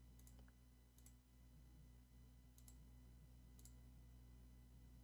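Faint computer mouse clicks, four in all, spread over a few seconds against near-silent room tone with a low steady hum.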